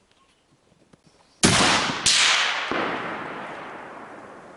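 Suppressed rifle shot about a second and a half in, a second sharp crack just after it, then a long echo rolling away across the range.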